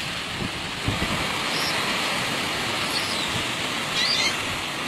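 Sea surf washing over a rocky shore, a steady hiss with a few low thumps about a second in. A brief, wavering high call sounds about four seconds in.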